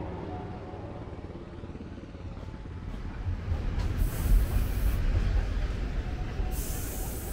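Subway train rumbling through a station, growing louder about three seconds in, with brief bursts of hiss.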